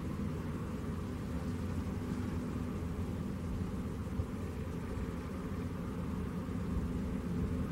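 Boeing C-17 Globemaster III's four Pratt & Whitney F117 turbofans running at low taxi power, a steady deep rumble.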